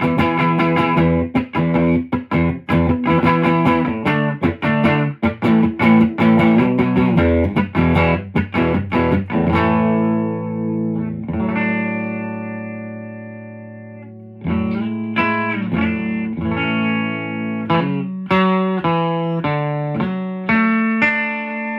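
Electric guitar, a Fender Custom Shop 1958 Jazzmaster on its bridge pickup, played loud through a Supro Thunderbolt MkII amp set to 35 W, with a slightly overdriven tone. Quick picked notes give way about halfway through to a chord left ringing and fading, then picking starts up again.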